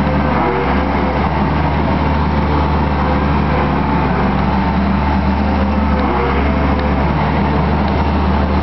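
Case skid steer loader's diesel engine running loud and steady under operation, with a few brief shifts in pitch about half a second in and again around six seconds in.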